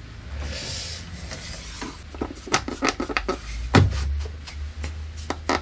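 A hand-held sanding block rubbed over the newly fitted wooden zero-clearance insert in a slide miter saw's table, smoothing it. It makes a quick, irregular run of short rasping strokes starting about two seconds in.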